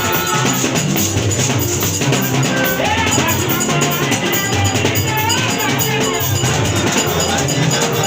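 Music with a drum kit, bass drum and percussion keeping a steady beat, with a wavering melody line over it.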